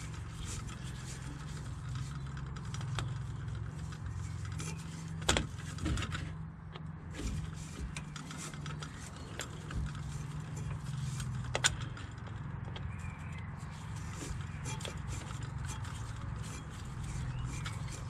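Screwdriver tightening a worm-drive Jubilee hose clip on a fuel filter, the clip's screw clicking repeatedly as it is wound down to seal the hose, with two sharper clicks about five and eleven seconds in. A steady low hum runs underneath.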